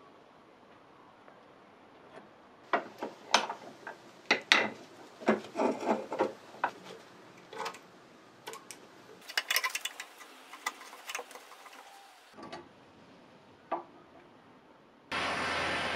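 Steel pliers and a pick scraping and clicking against the rusted jaw and worm screw of an antique adjustable wrench, in short irregular strokes as the seized parts are worked loose. Near the end a gas torch starts with a sudden steady hiss.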